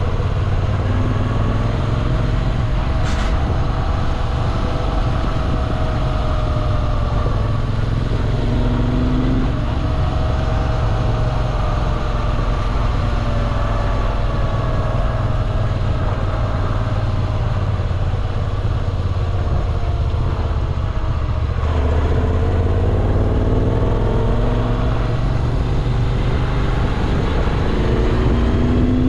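Moto Guzzi V7 Classic's air-cooled transverse V-twin running on the road under way, its pitch rising and falling as the throttle opens and closes and the gears change, over a steady low rumble.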